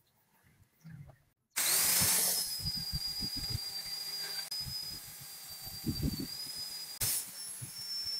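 Angle grinder with an orange polishing pad buffing a knife handle: a steady high whine that starts abruptly about one and a half seconds in, with uneven low knocks as the pad bears on the work. Before it, faint rubbing of a cloth wiping the handle.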